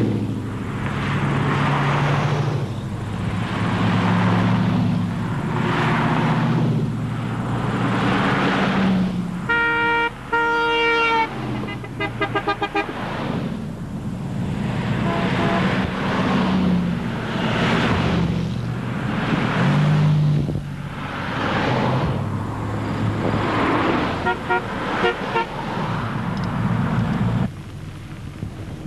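Road traffic heard from a moving car, with vehicles whooshing past about every two seconds over a low engine hum. A car horn sounds a long double honk about ten seconds in, and there are several short toots later.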